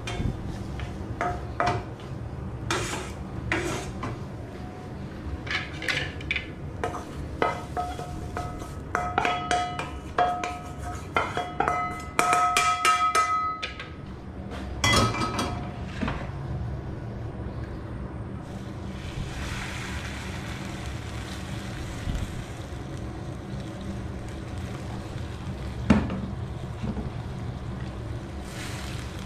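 Wooden spatula stirring and scraping scrambled eggs in a metal wok, with repeated knocks and short ringing clinks of the pan through the first half, then a loud clatter about halfway. A steady low hum runs underneath.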